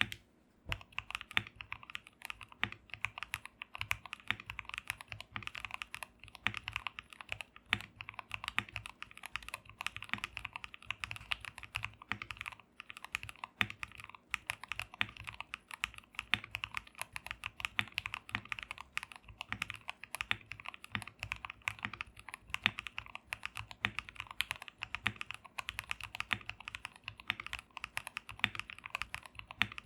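Fast, continuous typing on an Akko PC75B Plus V2 mechanical keyboard fitted with lubed Gateron Milky Yellow Pro linear switches, a masking-tape mod and tuned stabilizers: a dense stream of keystrokes, each a sharp click with a low thud under it.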